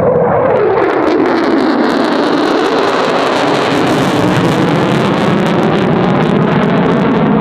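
Lockheed Martin F-35A's Pratt & Whitney F135 turbofan in afterburner, passing overhead: the tone drops in pitch over the first couple of seconds as the jet goes by, then settles into a loud, steady rumble with a rapid crackle.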